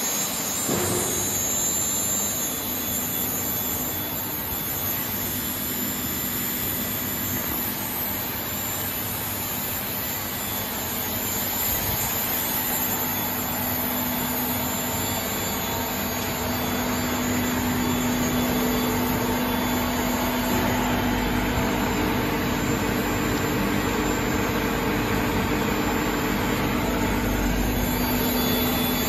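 Polypropylene melt-blown filter cartridge production line running: a steady rushing machine noise with a constant low hum, getting a little louder about halfway through.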